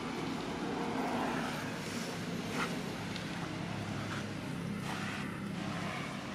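A small engine running steadily at idle, a low even hum throughout, with a few faint taps and leaf rustles from a small monkey climbing down a potted shrub.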